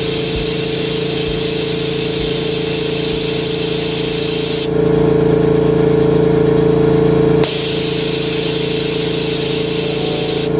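Jewelry laser welding machine running: a steady hiss over a low, even hum. For a few seconds from about five seconds in, the hiss thins and the hum gets louder, then it returns as before.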